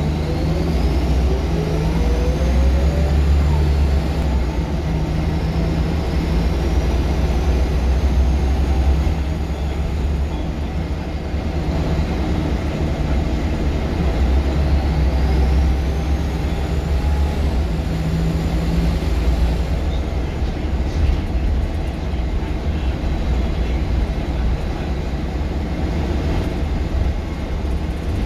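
Scania L94UB bus's diesel engine and drivetrain heard from inside the cabin while driving, a low drone that swells as the bus pulls away twice, with a faint high whine rising and falling with road speed.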